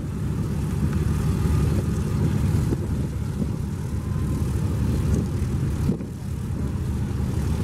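Boeing B-17 Flying Fortress's Wright R-1820 Cyclone radial engines running as the bomber taxis: a steady low drone.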